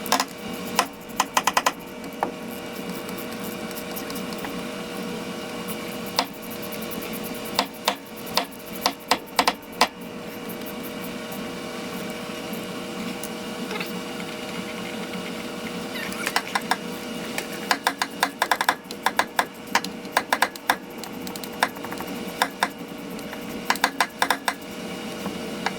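Hand ratchet clicking in short quick runs as bolts are threaded into the transfer case, over a steady hum.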